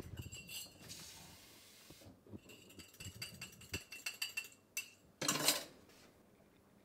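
Metal spoon stirring in a ceramic mug, clinking against the sides with ringing tings, first briefly and then in a quicker run. Near the end comes a short, louder rush of noise.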